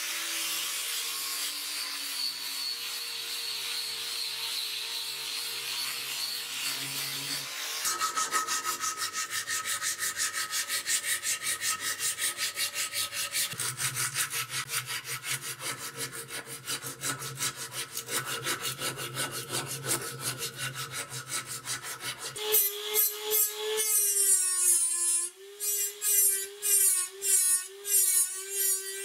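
An angle grinder with a sanding disc runs steadily against a wooden knife handle; about eight seconds in it gives way to hand sanding of the wood, quick rhythmic back-and-forth strokes. About twenty-two seconds in a rotary tool with a small buffing wheel starts up with a steady whine that breaks up as it is pressed against the handle in short passes.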